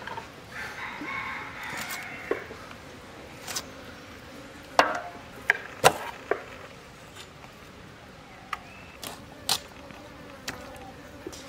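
Scattered sharp clicks and knocks of a large katla fish being cut into pieces on a boti blade and the pieces set on a steel plate, the loudest a little before and after the halfway point. An insect buzzes for about two seconds near the start.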